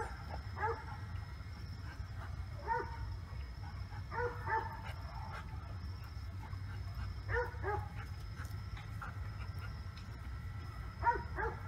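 German Shepherd dog giving short high-pitched whining yelps, in about five quick bursts of two or three notes each.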